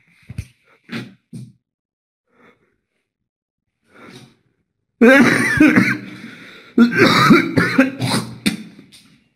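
A person coughing hard in two loud bouts, the first about five seconds in and the second just under two seconds later, each starting suddenly and trailing off. A few faint knocks come in the first second and a half.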